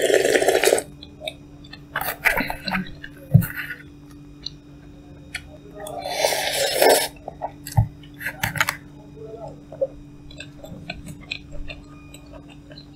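Close-miked eating of cup noodles: two loud slurps, one at the start and one about six seconds in, with chewing and small clicks between them.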